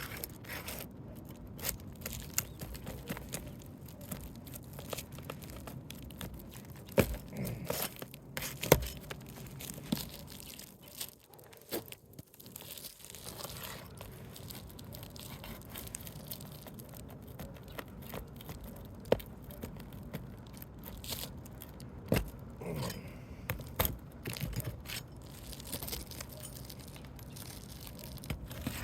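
Asphalt roof shingles being pried up and scraped with a Roof Snake nail-removal tool: crackling, tearing scrapes of the brittle shingle material, broken at times by sharp knocks of the metal tool. The tearing is the sound of the shingles ripping and creasing as they are lifted.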